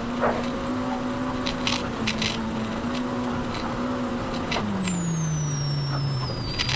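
Polaris RZR Pro R's 2.0-litre four-cylinder engine running under way, its revs dropping about five seconds in and staying low. A high whine rises and falls with the engine, with scattered short clicks and knocks over it.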